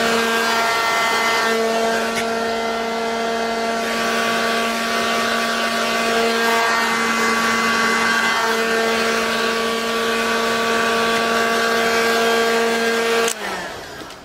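Heat gun running: a steady motor whine over rushing air as it blows hot air onto vinyl wrap on a motorcycle fork tube to shrink it tight. It switches off abruptly near the end.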